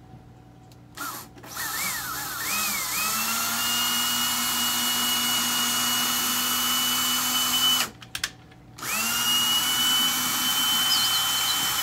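Cordless drill boring into drywall in two runs. It speeds up unevenly about a second in, runs at a steady whine for about five seconds and stops near 8 s. After a couple of clicks it starts again a second later and runs steady.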